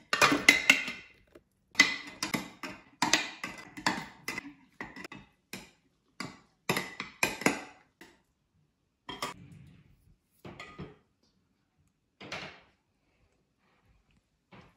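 A metal ladle knocking and scraping against glass as mashed plums are ladled from a glass bowl into a glass jar, with wet fruit dropping in. The clatter is dense for the first several seconds and thins to a few separate knocks.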